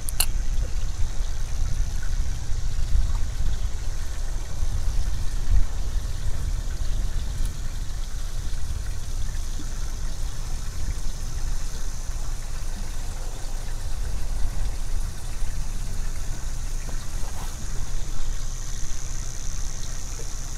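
Wind buffeting the microphone in a steady low rumble, with water lapping against the hull of a small boat sitting on the water and a faint steady high hiss behind it.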